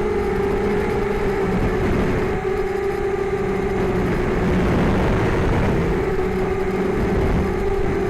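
Six small brushless motors (1804 2400Kv) spinning 5030 two-blade props on a mini hexacopter in flight, giving a steady whine whose pitch wavers slightly with throttle, over a low rumbling noise.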